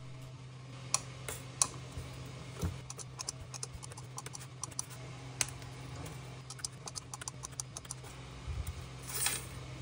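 Handheld probe spot welder tacking thin metal strip onto lithium-ion cell terminals: a scattering of sharp clicks and snaps, a few of them louder, over a steady low hum.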